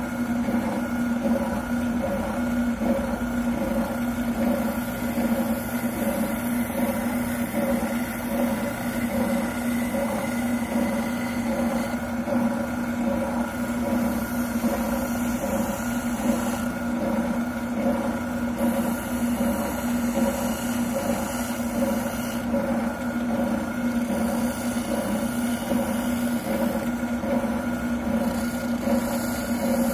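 Wilton oscillating sander's motor running steadily, with a plastic shotgun buttplate being sanded down on it.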